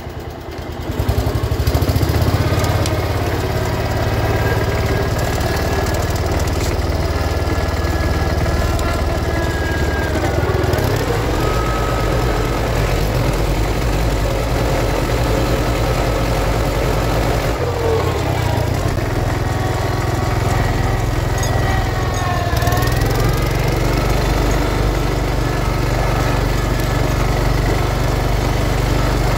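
A 1971 John Deere 140 H3 garden tractor's single-cylinder engine running steadily while it pulls a sleeve-hitch plow, getting louder about a second in. A higher whine over it dips briefly in pitch three times, at about 10, 18 and 22 seconds in.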